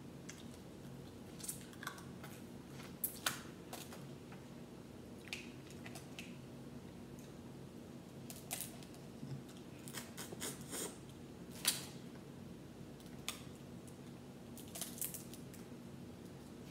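Boiled crawfish shells cracking and snapping as they are peeled by hand, in scattered sharp clicks, several close together near the middle. A low steady hum runs underneath.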